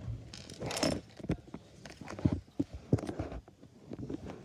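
Small plastic LEGO pieces being handled and pulled apart: scattered sharp clicks and knocks, with a brief rustle a little under a second in.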